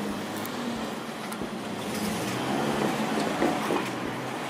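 Hanshin 8000-series electric train approaching slowly head-on, its running gear giving a steady low hum with some rising and falling tones about two to three seconds in.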